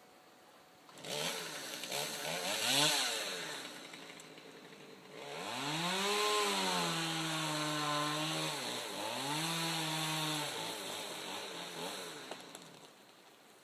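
Two-stroke chainsaw revving up and down in two bursts, held at high revs for a few seconds in the second burst before it drops back.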